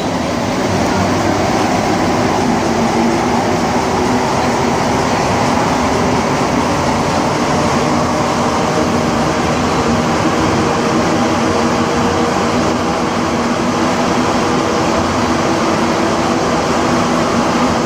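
Running noise of a rubber-tyred AZUR metro train, heard from inside the car as it leaves a station and runs through the tunnel. A steady rush comes with a constant hum of several tones from the train's drive.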